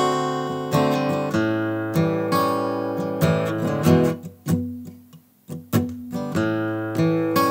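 Steel-string acoustic guitar played alone, strummed chords ringing out one after another. About four seconds in the strumming stops and the chords die away almost to silence. The playing picks up again a little over a second later.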